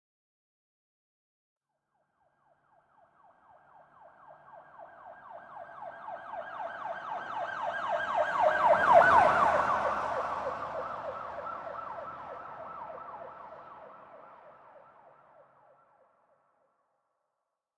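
Police car siren in a fast repeating up-and-down yelp, coming closer from faint to loud, loudest about nine seconds in, then fading away as the vehicle drives past and off.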